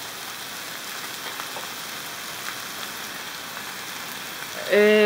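Lamb pieces sizzling steadily in ghee in a frying pan on high heat, an even crackling hiss.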